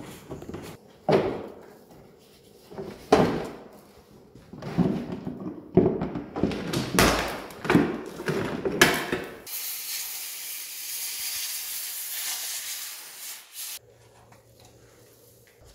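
Front inner wheel-arch liner of a Tesla Model 3 being flexed and pulled out of the wheel arch: a string of plastic scrapes and knocks. About two-thirds in, these give way to a few seconds of steady hiss.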